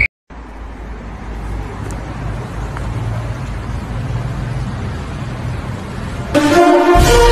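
Steady city street ambience: a low hum of distant road traffic. Music comes in loudly near the end.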